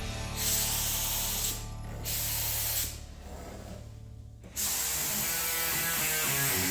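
Spray gun hissing in several bursts that start and stop abruptly, spraying paint or clear coat, over a steady low hum.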